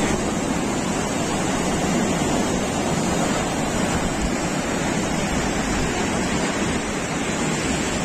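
Fast mountain river rushing over boulders in white-water rapids: a steady, loud rush of water.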